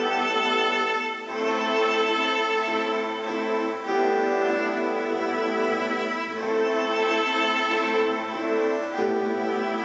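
Ambient looped music of long, sustained bowed-string notes from a cello sample played in the iPad app ThumbJam, layered through loopers and effects. The notes change a few times.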